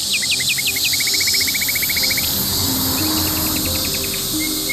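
A chorus of cicadas making a steady, high shrill hiss. Over it a bird calls: a few falling notes, then a fast run of short repeated notes, a fainter run later, and a held whistled note near the end.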